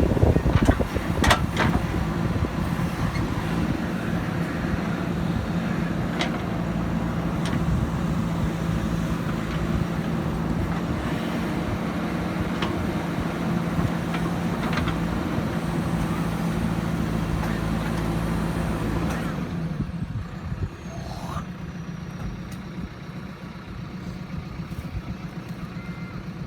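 Diesel engine of heavy earthmoving machinery running steadily under load, with a few sharp knocks; about twenty seconds in it drops to a quieter, lower running note.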